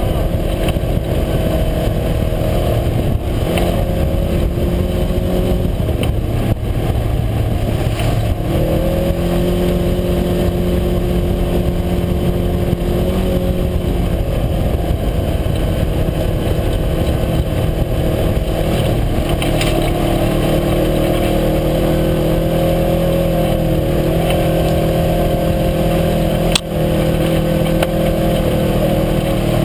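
UTV engine running steadily under way, its pitch shifting up and down several times as speed changes. A single sharp knock comes near the end.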